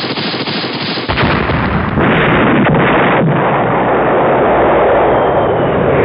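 Gunfire sound effect: a loud, continuous rumbling wash with several sharp cracks in the first half, growing louder about one and two seconds in.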